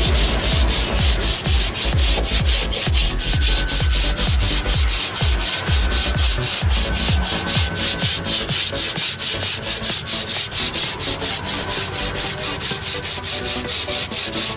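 Hand sanding of a car's paintwork, abrasive paper rubbed back and forth in quick even strokes, about four a second.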